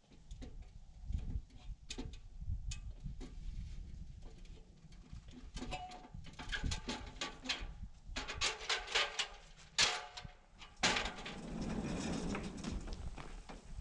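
Scattered knocks and clicks from an aluminium ladder being climbed down. About eleven seconds in there is a sharp knock, then the steady rolling noise of heavy rough-cut wooden sliding barn doors running along their overhead track.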